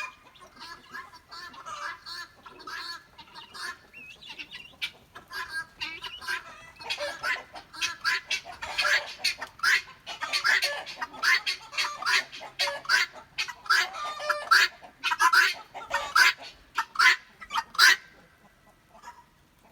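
A flock of chickens and guinea fowl cackling and calling: scattered calls at first, then a dense run of loud, quickly repeated calls, which die away near the end. The keeper says this much cackling is not normal for this time of day and takes it for the roosters sensing danger.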